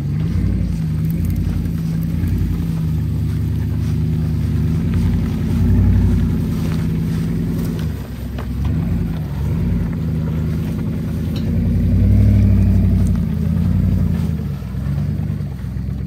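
Pickup truck engine running under load as it tows a wrecked Subaru Outback across a grass field, its note rising and falling, with louder surges about six and twelve seconds in.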